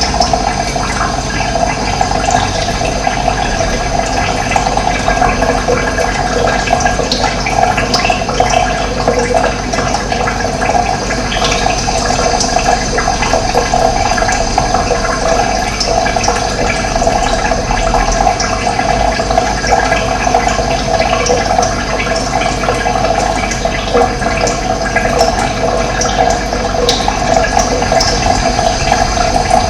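Running water: a steady, even rush of flowing water with no break.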